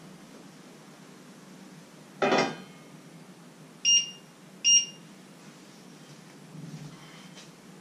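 A clank of kitchenware, then two short electronic beeps about a second apart, like a cooker control or timer beeping.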